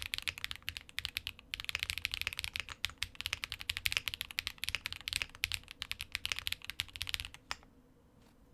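Fast typing on a QK65 mechanical keyboard with lubed Geon Peri linear switches on a POM plate and JTK keycaps: rapid runs of keystrokes with a short pause about a second in. The typing stops about seven seconds in, with one last keystroke just after.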